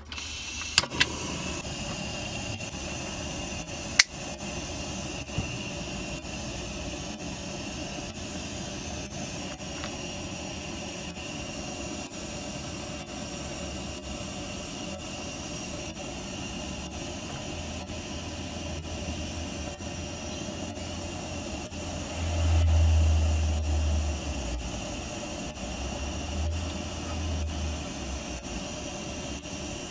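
Butane blow torch lit with a couple of sharp ignition clicks about a second in, then its flame hissing steadily, with a low rumble swelling twice in the last third; the hiss stops suddenly near the end.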